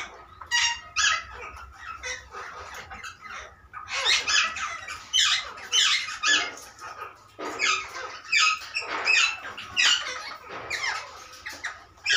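A flock of parakeets calling: many short, harsh screeches and chirps overlapping one another, growing busier about a third of the way in.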